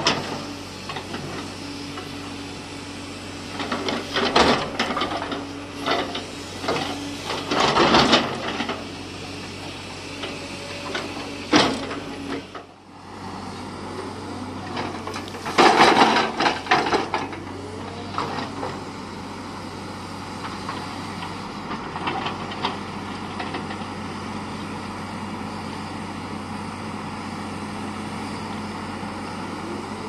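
JCB 370 tracked excavator's diesel engine running steadily under hydraulic load while its steel bucket scrapes and digs into dirt and stones, giving several loud gritty scraping bursts in the first half. After a brief break about halfway, the engine and hydraulics carry on steadily with only a few smaller scrapes.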